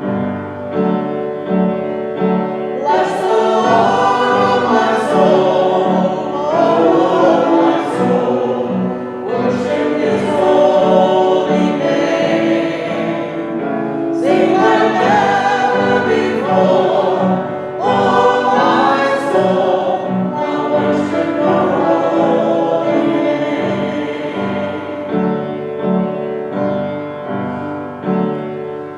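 Worship song: voices singing in phrases of a few seconds over a steady instrumental accompaniment.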